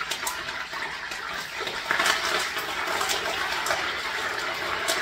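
Hot oil in a stovetop pot sizzling hard as sprigs of fresh parsley are dropped in to fry, with sharp crackles and pops throughout.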